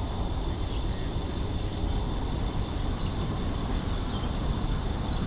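Steady low outdoor rumble, with small birds chirping in short notes every so often.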